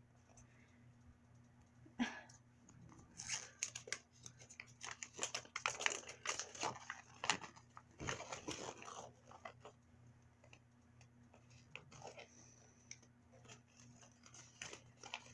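Faint rustling and crinkling of plastic packaging with small clicks of plastic toy pieces being handled, in irregular bursts that thin out in the last few seconds.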